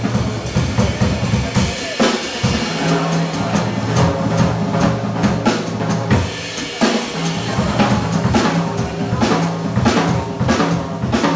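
Live jazz trio playing, the drum kit loudest, with frequent snare, cymbal and bass-drum hits over walking upright-bass notes and a plucked string instrument.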